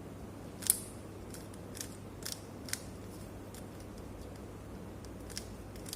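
Rubik's cube being turned by hand through an F2L algorithm: a run of short, light plastic clicks, irregularly spaced, as the layers are rotated.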